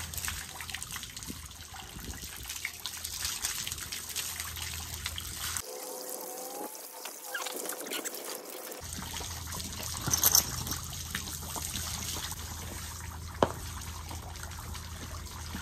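Garden hose spraying water over a horse's head and coat, a steady hiss of water with splashing and trickling. Two short sharp knocks break in during the second half, the first about ten seconds in and the louder of the two.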